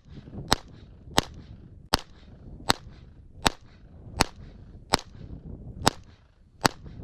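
Gun fired in quick succession, nine sharp shots about three-quarters of a second apart, with faint wind between them.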